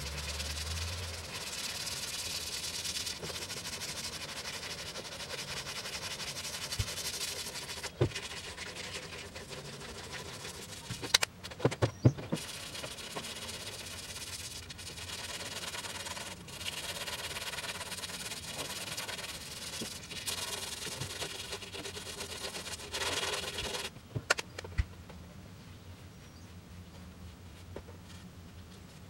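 Hand sanding with 1000-grit sandpaper over feather-fill primer on a 1953 Ford F100's steel cab: a steady rasping rub in long stretches with short pauses between strokes. There are a few sharp knocks around the middle and again a little before the end, after which the sanding eases off.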